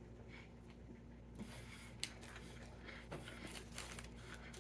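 Faint eating sounds from someone chewing a sub sandwich, with scattered small clicks and one sharper click about two seconds in.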